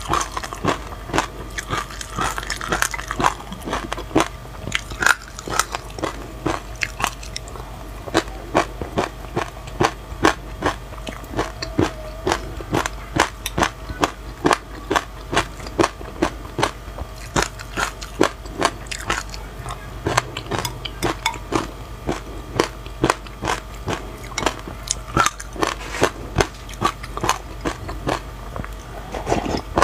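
Close-miked chewing of raw sesame and anise seeds with passion fruit: a steady run of small, crisp crunches, a few a second, as the seeds are bitten open.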